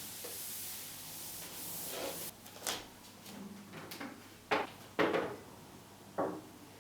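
A steady hiss for about two seconds, then several separate knocks and clunks of things being handled and set down, the loudest two close together halfway through.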